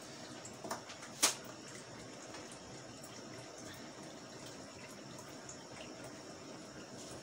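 Large pot of soup simmering on the stove, a steady low hiss. There are a couple of light clicks and one sharp knock about a second in.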